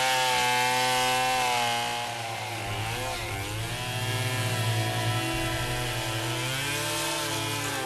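Chainsaw running at high revs as it cuts into wood. Its engine pitch dips about three seconds in, then rises and falls as it works under load.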